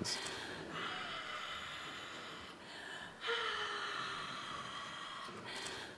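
A woman's two long, breathy gasps, each about two seconds, the second starting about three seconds in.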